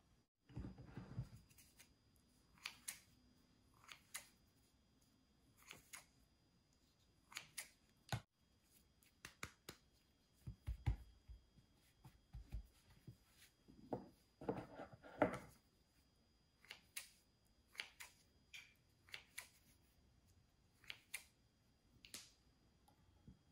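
Faint, irregular taps, clicks and rustles of hands shaping and cutting soft dough pieces on a floured cutting board, with a few soft thumps in the middle.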